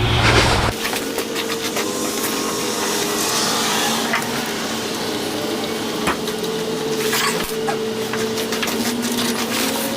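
Hand ratchet clicking in quick runs as bolts are run in snug on a flywheel-to-crankshaft adapter, over a steady hum.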